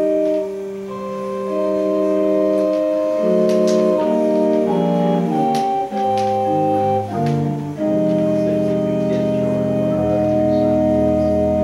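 Organ playing slow, held chords that change every second or so, as a prelude before the service.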